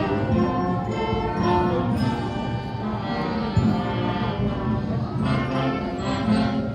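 Orchestral music with held, sustained notes that move from chord to chord.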